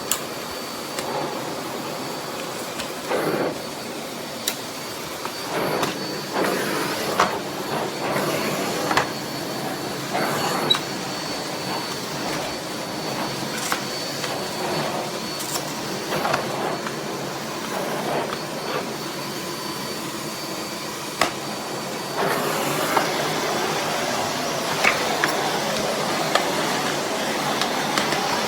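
Miele Blizzard CX1 bagless canister vacuum running, a steady rush of air and motor hum with a faint high whine, broken by frequent clicks and knocks from the cleaning head moving over the floor. It grows louder for the last few seconds.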